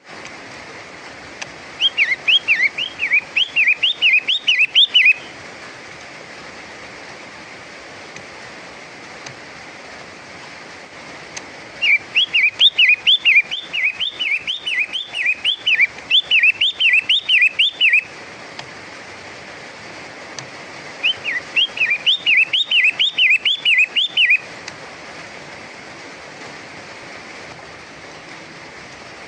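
A pentet matahari, a long-tailed shrike, calling in bouts of quick, repeated rising-and-falling whistled notes, about five a second. Three bouts of three to six seconds are separated by pauses of several seconds, and a fourth begins at the very end. A steady hiss lies under it.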